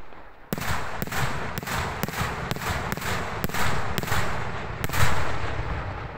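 Daytime salute fireworks: a rapid string of about a dozen sharp aerial shell bursts, two to three a second, each rolling off in a low echoing rumble. The loudest bang comes about five seconds in, and its rumble fades away after it.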